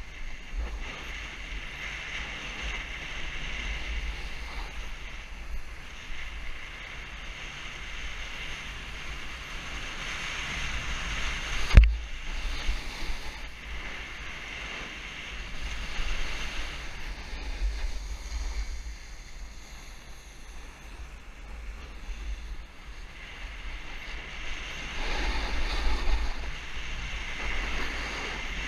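Snowboard sliding over firm snow, a steady hiss and scrape that swells as the board turns, with wind buffeting the camera microphone. A single sharp knock about twelve seconds in.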